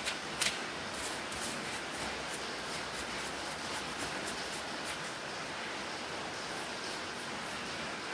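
Bristle paintbrush sweeping across the open plastic underside of a laptop, quick scratchy strokes about three a second, with a short pause past the middle, over a steady hiss.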